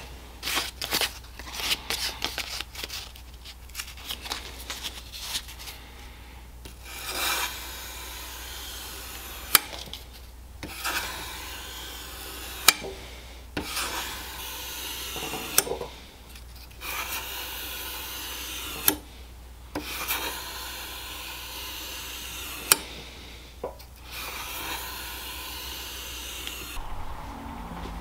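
Hand-sanding a steel knife blade to round its spine and choil: abrasive rubbed back and forth on the metal in stretches of a few seconds, broken by short pauses and a few sharp clicks.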